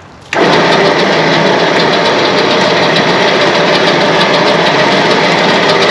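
A motor starts up suddenly and runs steadily under load while a pickup truck is pulled toward a car trailer.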